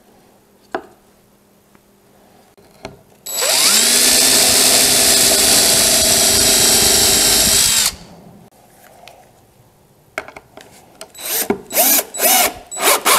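Cordless DeWalt drill driving a screw through a wooden brace into a chair seat. The motor spins up and runs steadily for about four and a half seconds, then gives a few short bursts near the end as the screw is seated.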